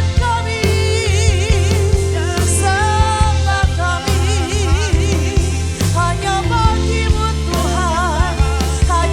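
Worship band music: a solo voice singing with vibrato over sustained bass notes and a steady drum beat.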